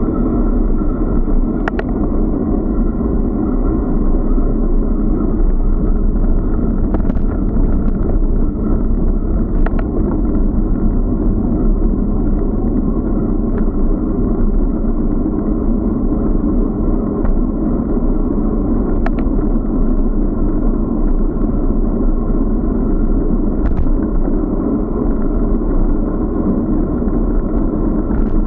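Steady muffled rumble of wind buffeting an action camera's microphone and the bicycle rolling along the road, with a few faint clicks from the mount or bumps scattered through.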